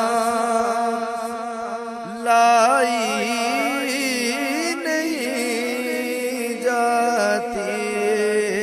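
A male voice chanting an Urdu noha in long, wavering melismatic lines; a new, louder phrase comes in about two seconds in.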